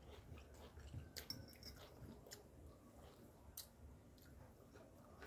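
Near silence with faint chewing and a few soft clicks from people eating.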